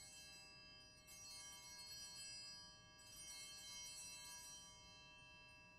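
Altar bells rung at the elevation of the consecrated host. A fresh peal comes about a second in and another about three seconds in, each ringing on and fading slowly.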